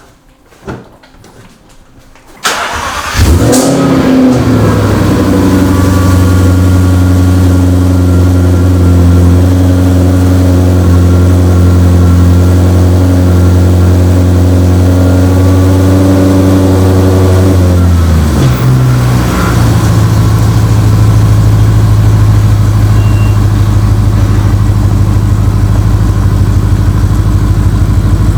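Jaguar XF's engine being started about two and a half seconds in, catching and settling into a steady idle. Its note shifts about 18 seconds in and then runs on steadily.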